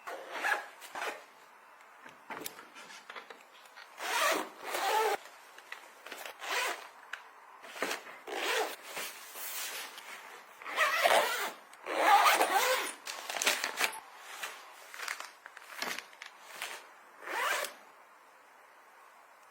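Zippers being pulled open and shut in a series of short irregular runs, with handling rustle between them.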